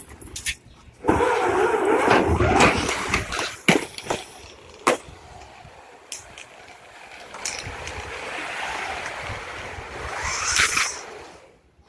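Flat fire attack hose from a Minuteman load sliding off the engine and scraping along asphalt as it pays out, with scattered knocks and clicks of gear and couplings. The scraping is loudest from about one to four seconds in, then settles to a softer steady drag that fades out near the end.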